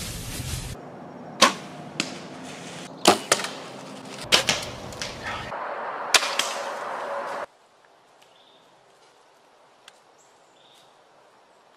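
Bow shots at whitetail deer: about five sharp cracks in the first six seconds, each a bowstring release with the arrow striking, followed by a much quieter stretch from about seven seconds on.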